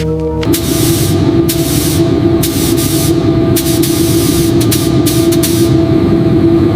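Spray gun hissing as primer is sprayed onto a model train, in repeated short bursts over a steady hum.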